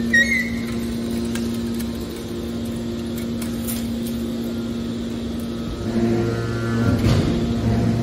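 Hydraulic scrap-metal baler's power unit running with a steady hum. About six seconds in, a deeper hum joins and the sound gets louder.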